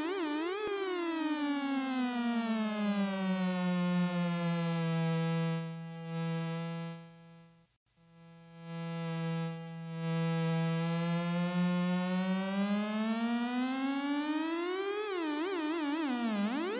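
Electronic synthesizer tone, rich in overtones, gliding down in pitch and then holding a low steady note. It fades and cuts out for a moment about eight seconds in, comes back on the same low note, then slides back up in pitch with a wobble near the end.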